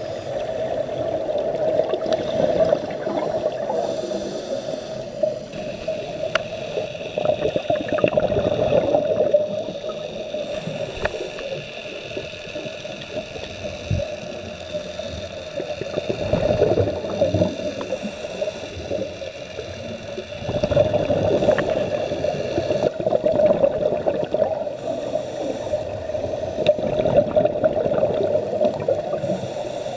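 Underwater sound picked up through a camera's housing: a steady muffled rush with gurgling that swells and fades every few seconds, typical of a scuba diver's exhaled regulator bubbles.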